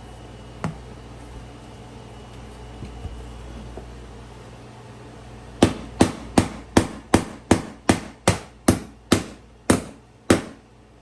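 Hammer driving a flat-top nail into a door threshold strip on a wooden floor: one knock about a second in, then a run of about twelve quick, even blows, two or three a second, spacing out slightly near the end.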